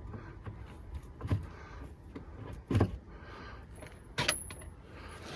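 Work-site knocking and clattering, like tools and loose debris being handled: three sharp knocks about a second and a half apart, the last the loudest, with lighter ticks between.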